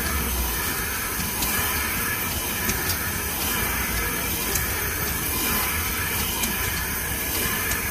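Steam hissing steadily from a 300 hp Corliss steam engine, swelling and easing about once a second.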